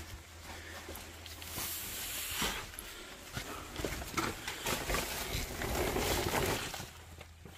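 Rustling and scraping of a person shuffling and crawling over a dirt floor, clothing brushing against the earth, with small knocks and a low steady hum underneath that stops near the end.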